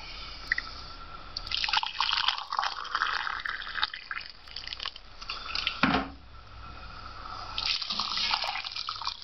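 Boiling water poured from a metal kettle into a ceramic mug, then, after a knock about six seconds in, the mug of water poured into a pot of rice.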